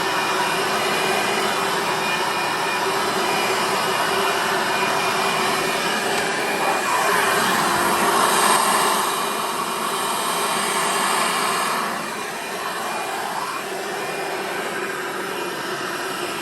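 Hoover Sprint upright vacuum cleaner running steadily with a motor whine. It gets a little louder about eight seconds in and drops somewhat from about twelve seconds. The owner judges that its drive belt needs replacing.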